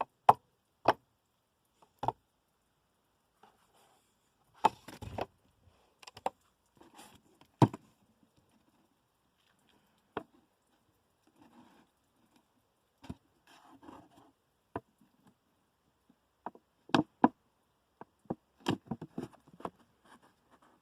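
Handling noises: scattered sharp knocks and clicks with brief stretches of rustling, as plastic water bottles shot through with .177 pellets are picked up and turned over for inspection.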